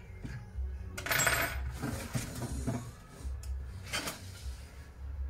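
Metal and plastic parts of a laser printer's fuser unit clicking and clattering as it is handled and taken apart by hand. There is a louder rattle about a second in and a sharp click about four seconds in.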